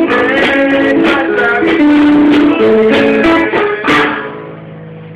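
Live guitar strumming chords with held notes, no singing. About four seconds in the playing falls away to a quieter sustained note, then the strumming starts again at the end.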